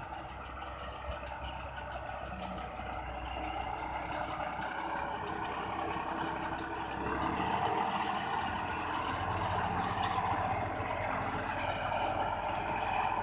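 Tractor engine running steadily while it drives a Gomadhi round baler. The sound grows louder about halfway through.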